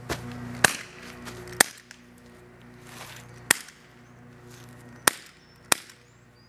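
High-powered airsoft gun firing: five sharp cracks at uneven intervals, the first two the loudest, over a steady low hum.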